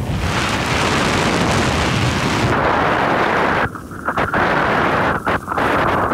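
Wind rushing over a phone microphone with snowboards sliding and scraping across hard-packed snow, a loud steady rush that dips briefly a few times in the second half.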